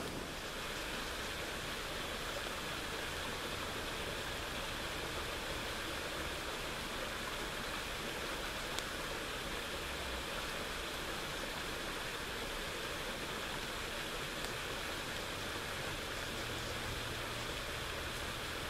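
Steady, even rushing of water that does not change.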